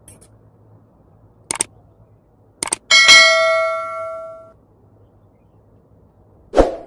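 Sound effect of an on-screen subscribe button: a few short clicks, then a bell ding about three seconds in that rings out for about a second and a half. A single dull thump follows near the end.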